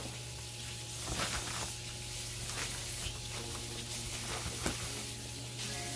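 Plastic bag of frozen corn cobs rustling and crinkling as it is handled, a few sharp crackles over a steady hiss.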